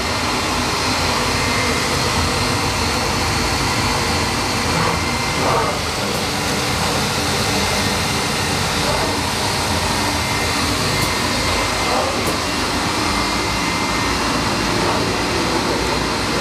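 WEEKE CNC woodworking machining center running, a loud, steady whirring noise without let-up.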